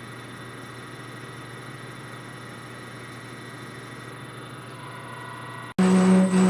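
Steady low hum of a metal lathe running. About five and a half seconds in it cuts off sharply and electronic background music starts.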